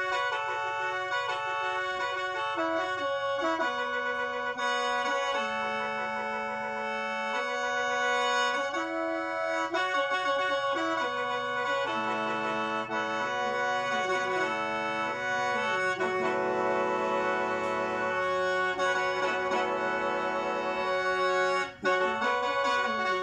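Lao khaen, the bamboo free-reed mouth organ, played solo: a melody in chords over a steady drone note, with a brief break near the end.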